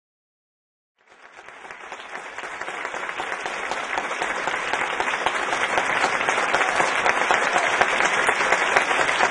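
Audience applauding: dense clapping that starts suddenly about a second in and grows steadily louder.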